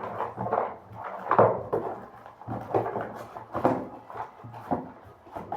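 Handling noises of paper squishy toys being moved and picked up: a string of irregular light knocks and rustles, about one every half second to second, over a low steady hum.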